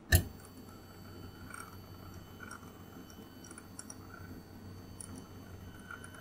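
Monoprice Select Mini 3D printer's X-axis stepper motor jogging the print head along the gantry in short moves, each a brief whine, with faint clicks from the control knob over a steady low hum. A sharp click at the very start is the loudest sound.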